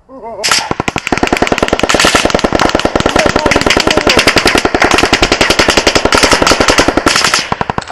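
Loud, near-continuous automatic gunfire, many shots a second, starting about half a second in and easing just before the end.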